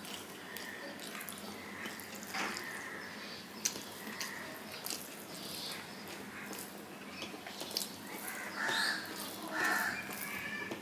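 Close-up eating sounds: wet chewing with short smacks and clicks, and fingers mixing rice and curry on a steel plate, with a few louder harsh bursts near the end.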